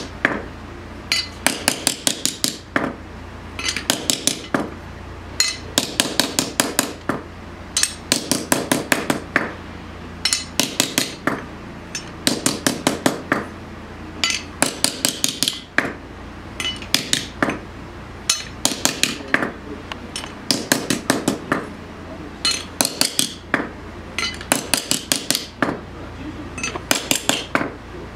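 Hand hammer striking a steel knife blade on a stump anvil: quick runs of sharp, ringing metal taps, several a second, broken by short pauses. The blade is being hammered cold, at room temperature, to make the steel's grain finer and the blade stronger before tempering.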